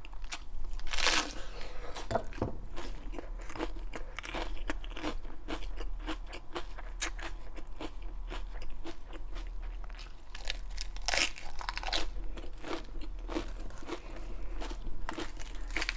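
Close-miked crunching and chewing of raw iceberg lettuce, with a run of crisp, watery crunches as leaves are bitten and chewed. Near the end, lettuce leaves crinkle and tear as they are pulled off the head.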